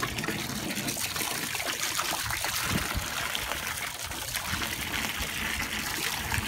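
Water running from a garden hose and splashing into a tub of water below, a steady trickle with fine splashes while a camel drinks from the hose end.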